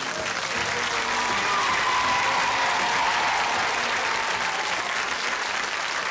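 Studio audience applauding, a dense steady clapping at the end of a song.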